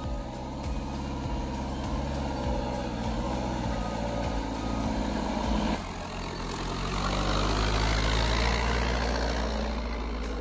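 Diesel engine of a loaded Isuzu light truck running on a dirt track, steady at first, then growing louder and rougher from about six seconds in as the truck comes close.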